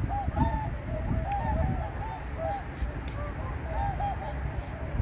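A flock of whooper swans calling: many short, arched honking calls overlapping throughout, over a low rumbling noise.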